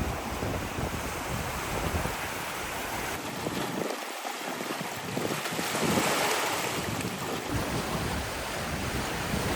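Pacific surf washing onto the shore in a steady wash, with a wave swelling up loudest about six seconds in. Wind buffets the microphone with a low rumble.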